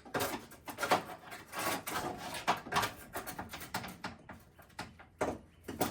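Irregular clattering, knocking and scraping of metal and plastic body parts being worked loose by hand, with a sharper knock near the end.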